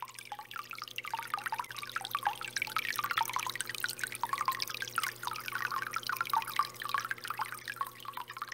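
Water trickling and splashing in a JBJ 45-gallon rimless reef aquarium's circulation, a busy run of small splashes over a steady low hum from its pump.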